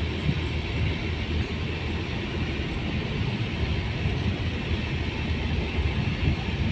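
Steady engine and road noise of a car driving along, heard from inside the cabin: an even low rumble under a hiss of tyres.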